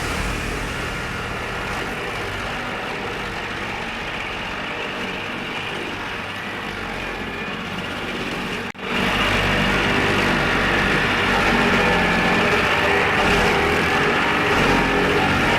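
An engine running steadily. It cuts out abruptly for an instant about halfway through, then comes back somewhat louder.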